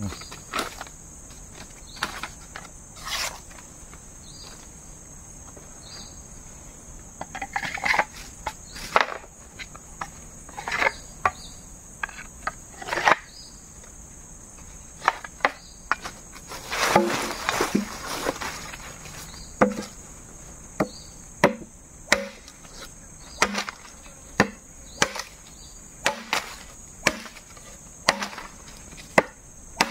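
Traditional Sarawak parang chopping into wood. The strikes come at uneven intervals at first, then settle to about one a second from about halfway through, over a steady high buzz of insects.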